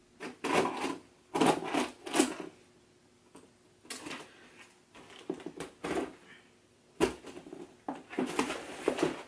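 Scissors cutting the packing tape on a cardboard shipping box to open it, in a run of short, irregular scraping and tearing bursts.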